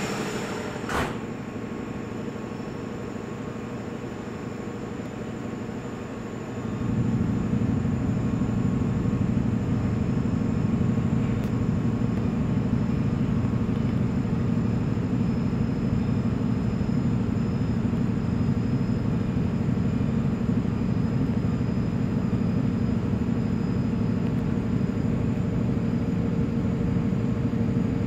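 Jenbacher JMS 620 GS gas engine generator set running under load in mains-parallel operation at 1500 rpm: a steady low drone that grows louder and fuller about six seconds in. A single click about a second in.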